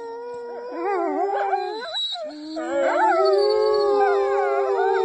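A pack of wolf-like canines and a woman howling together in a chorus of long, overlapping, wavering howls. The chorus thins briefly about two seconds in, then swells louder.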